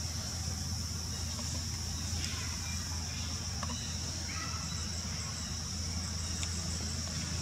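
Insects droning steadily in a high pitch over a low, even hum, with a few faint short calls about four seconds in.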